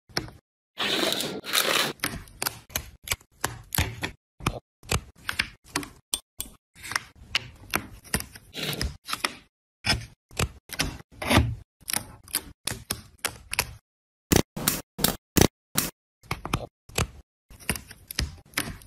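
Short, sharp clicks, snaps and knocks of laser-cut plywood parts of a wooden AK-47 model kit being handled and fitted together. The clicks come in irregular clusters with brief gaps, and a quick run of about six sharp clicks comes about three-quarters of the way through.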